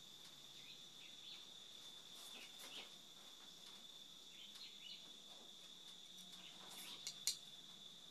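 Faint scraping of a small metal scoop in loose potting soil as it fills a ceramic teacup, with one sharp clink about seven seconds in. A steady high tone runs underneath.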